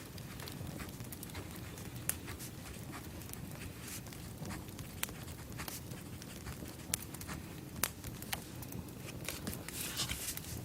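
Campfire crackling: scattered sharp pops at irregular moments over a steady low rumble.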